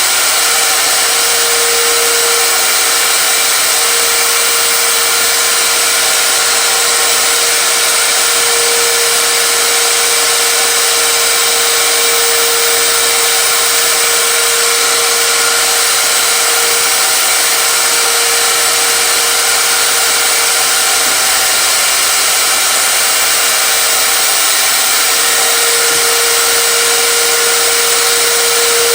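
A loud electric motor running steadily with a rushing whine, unbroken throughout.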